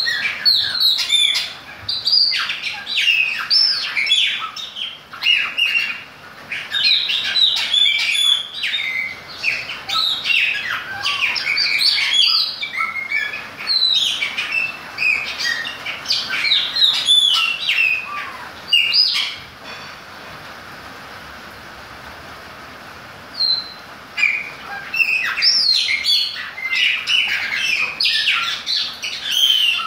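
Chopi blackbird singing: a rapid, varied string of loud whistles and chirps. The song breaks off for about four seconds past the middle, leaving only a steady hiss, then starts again.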